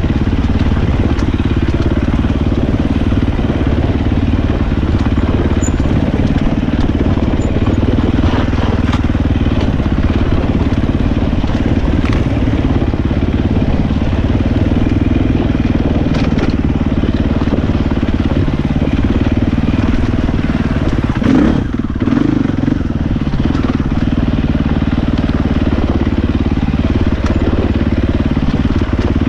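Husqvarna 450 dirt bike's four-stroke single-cylinder engine running steadily as the bike is ridden over a rocky trail, with a brief dip and rise in revs about two-thirds of the way through.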